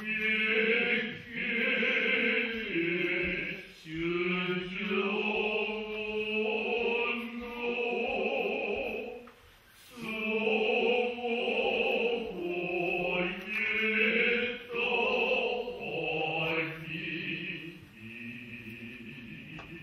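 Noh chorus (jiutai) of men's voices chanting utai in unison, long sustained phrases that pause briefly for breath about ten seconds in and grow softer near the end.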